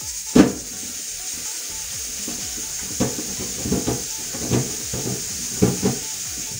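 Kitchen tap running into a sink while fruit is washed by hand, with one sharp knock about half a second in and several lighter knocks and clatters in the second half.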